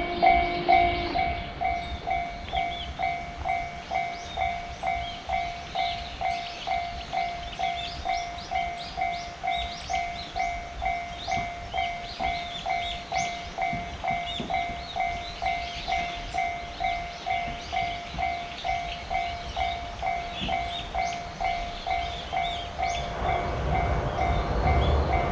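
Japanese railroad crossing warning bell ringing steadily at one pitch, about two dings a second. A low rumble builds near the end as a train approaches.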